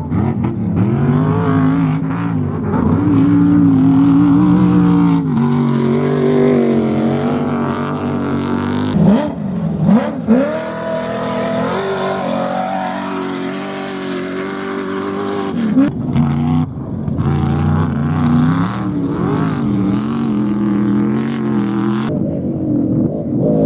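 Off-road race vehicles' engines revving and accelerating, the pitch repeatedly climbing and dropping as they run through the gears, with more than one engine overlapping at times and a sharp rising sweep about ten seconds in.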